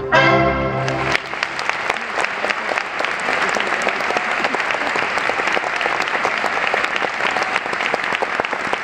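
The music's last chord cuts off about a second in, and a theatre audience breaks into steady, dense applause.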